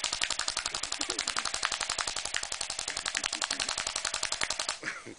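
D-Boys full-metal M4 electric airsoft rifle firing on full auto: a long, rapid, even stream of shots that stops shortly before the end.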